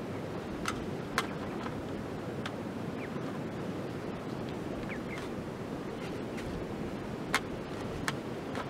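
Pizza dough being patted and pressed out by hand on a camp table: a few sharp, irregular taps and clicks of fingers on the dough and table over a steady rushing background.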